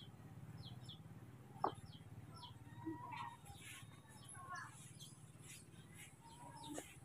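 Faint high-pitched chirping and a few short squeaky calls from small animals, with a single sharp click about a second and a half in, over a low steady hum.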